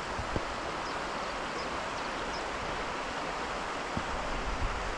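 Steady rush of fast-flowing water from a burn and its waterfalls, with a couple of soft thumps from footsteps on rock.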